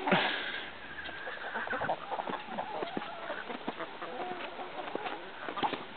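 Domestic hens clucking. Near the start one hen gives a drawn-out call lasting about a second and a half, and after it come scattered short clucks and small knocks.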